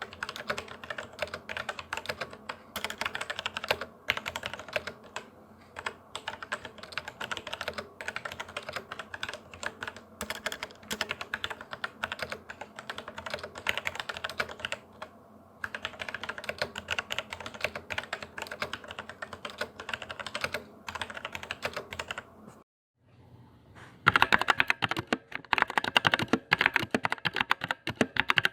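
Fast typing on a mechanical keyboard, a steady stream of key clicks and clacks. It breaks off briefly about three-quarters of the way in, then resumes louder and brighter.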